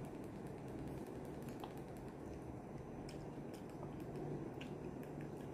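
Faint sounds of someone eating alone at a table: a few scattered light clicks and chewing over a low steady hum.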